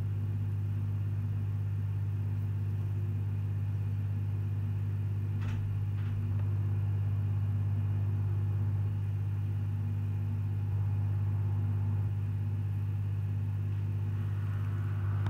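Steady low hum from a machine or appliance, with evenly spaced overtones, slightly louder for a few seconds at a time. Two short clicks about five and a half and six seconds in.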